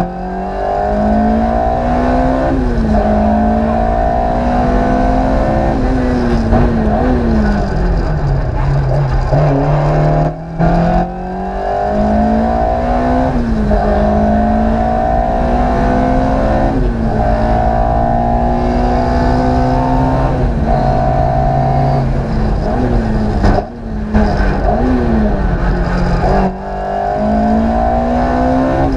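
Ford Escort Mk II rally car's naturally aspirated 2-litre Cosworth four-cylinder engine at full throttle, heard from inside the cabin. It revs up through the gears, and its note drops sharply at each gear change. It eases off once for a few seconds before pulling hard again.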